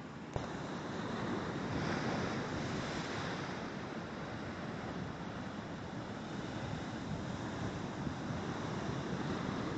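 Heavy ocean surf breaking over coastal rocks: a dense, steady wash of whitewater that swells about two seconds in as a big wave breaks. A sharp click sounds near the start.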